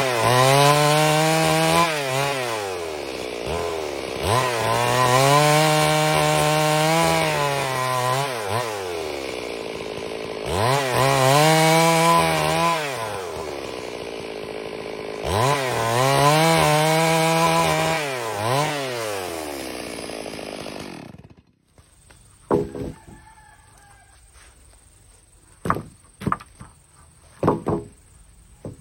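Chainsaw sawing timber into planks, its engine revving up under the cut and sagging back four times before it shuts off suddenly about 21 seconds in. A few sharp knocks of wood follow near the end.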